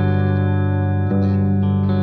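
Background music: held chords that shift about a second in.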